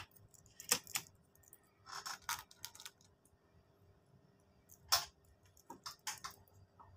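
Scattered light clicks and knocks in small clusters with pauses between them, the loudest about five seconds in: handling noise from the PCP air rifle being readied between chronograph shots.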